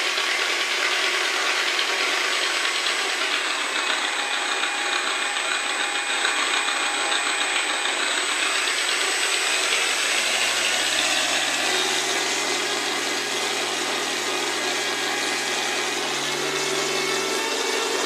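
Wright Cyclone nine-cylinder radial engine of a T-28 Trojan running with a rough, rattling sound. About halfway through, a low tone comes in and slowly rises in pitch as the engine speeds up.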